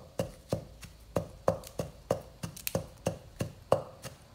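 Pestle pounding jaew bong chili paste in a mortar, in a steady rhythm of about three strokes a second, each stroke with a short ring.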